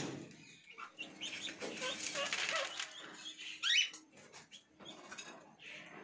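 Indian ringneck parakeets in a wire-mesh aviary: wings fluttering and rustling for a couple of seconds, with short calls, the loudest a brief bent squawk about three and a half seconds in.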